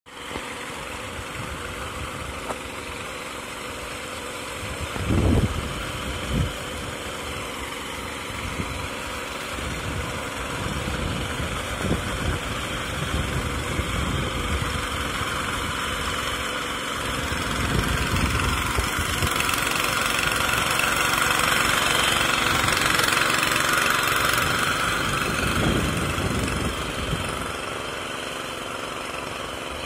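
Engine of a 7 hp power weeder running steadily as it tills a flooded paddy field, with two heavy thumps about five and six seconds in. It grows louder past the middle, then eases off near the end.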